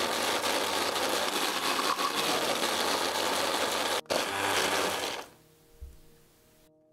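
Electric mini chopper (hand-blender motor on a chopper bowl) whirring as it purees basil, garlic and sunflower seeds with olive oil into a smooth sauce. It breaks off for an instant about four seconds in, runs for about another second, then stops.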